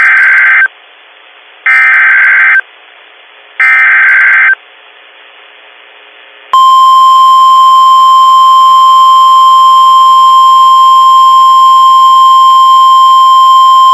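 Emergency Alert System SAME header: three short bursts of screechy digital data tones about two seconds apart. About six and a half seconds in comes NOAA Weather Radio's warning alarm, one loud, steady single-pitch tone, the signal that a weather alert message is about to be broadcast.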